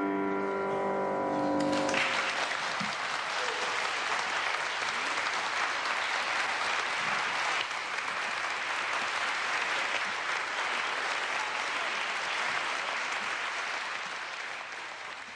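A held piano chord ends about two seconds in, then an audience applauds steadily, the applause fading out near the end.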